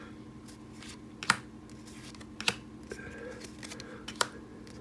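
Trading cards handled and flipped by hand: soft rustling with three sharp taps, about a second in, halfway through and near the end, over a faint steady hum.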